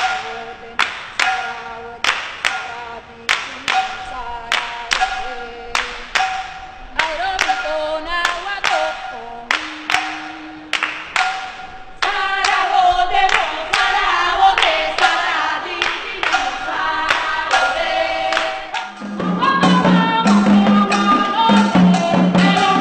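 A woman sings a Lucumí (Afro-Cuban Yoruba) chant over steady hand claps, about two claps a second. About halfway through, a chorus of women's voices joins in answer, and near the end the music grows fuller with a low pitched accompaniment.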